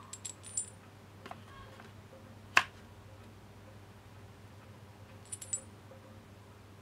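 Small steel bolts and the steel plate of an A/C compressor clutch tool clinking together as they are handled: a few light metallic clinks with a high ring near the start, one sharp click about two and a half seconds in, and another short run of clinks about five seconds in, over a steady low hum.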